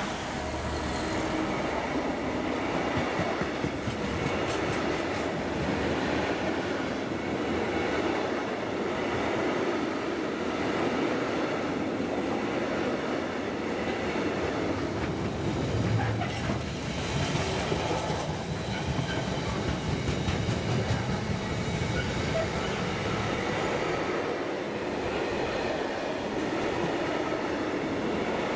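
Container wagons of a long intermodal freight train rolling past close by: a steady rumble of steel wheels on the rails, with scattered sharp clicks as the wheels cross rail joints.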